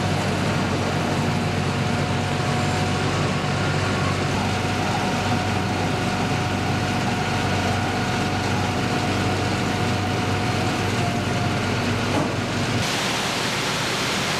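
Heavy construction machinery running steadily on a dam drilling and grouting site: a low engine drone with a steady whine over it. Near the end the sound changes abruptly to a steady rushing hiss.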